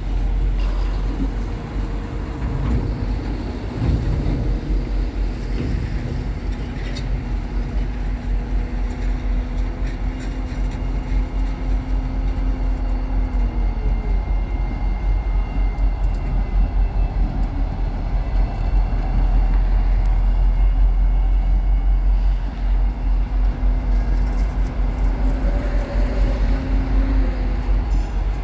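A pair of EMD diesel locomotives rolling slowly past: a deep steady engine rumble with a hum over it. The hum drops in pitch about 13 seconds in and returns about 23 seconds in.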